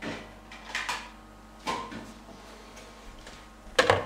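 A few short knocks and rattles of kitchenware being handled, ending with a sharp clatter about four seconds in as a red plastic sieve is set down on a plastic mixing bowl.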